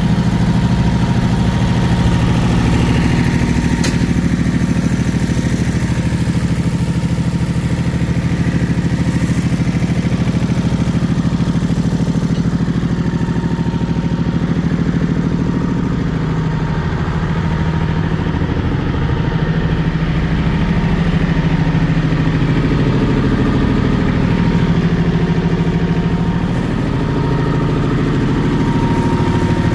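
Iseki 3210 compact tractor's diesel engine idling steadily.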